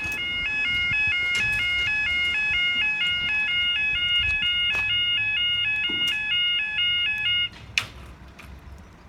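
Level crossing warning alarm sounding a loud two-tone warble, about three alternations a second, then cutting off suddenly about seven and a half seconds in. Only one of the crossing's alarms is working.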